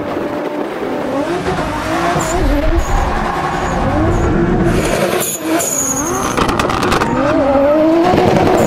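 Toyota Supra drift car's engine revving up and down hard as it slides, with tyre squeal over it. It gets louder toward the end.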